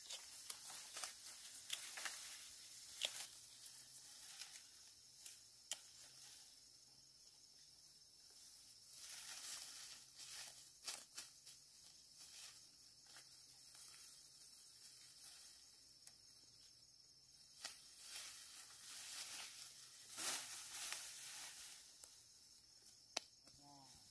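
Rice stalks and leaves rustling as upland rice heads are cut by hand with small scissors and gathered into a bundle, with scattered faint snips and crackles.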